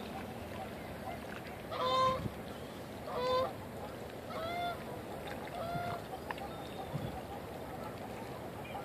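Canada geese honking: four single honks about a second apart, the last two fainter, over steady background noise.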